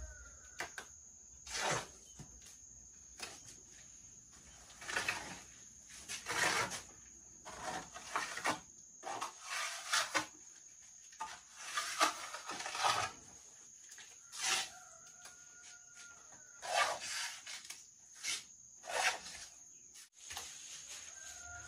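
Irregular rasping, rustling strokes, each under half a second and coming about once a second, with a steady thin high-pitched whine behind them.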